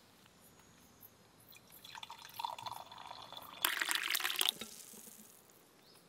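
Tea poured from a camping kettle into a stainless steel mug. The liquid trickles and fills the mug, growing louder and splashier for about a second before it stops.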